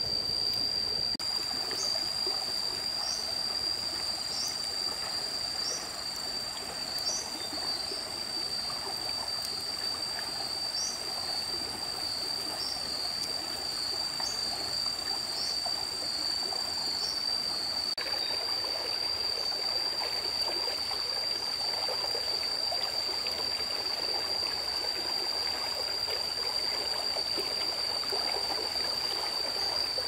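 Stream water running steadily, with a constant high-pitched whine above it and short high chirps repeating about every second and a half through the first half.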